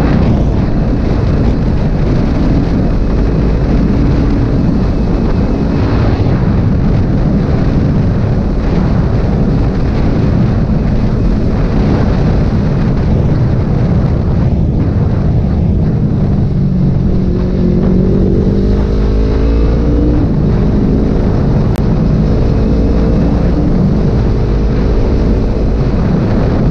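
Kawasaki Ninja 250 FI's parallel-twin engine running at road speed under heavy wind noise on the microphone. About two-thirds of the way through, the engine note climbs for a few seconds as the bike accelerates, then drops back.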